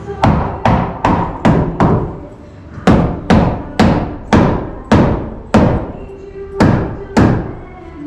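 Hammer driving nails into a wooden header and studs: about fourteen sharp blows at two to three a second, in two runs with a short break about two seconds in.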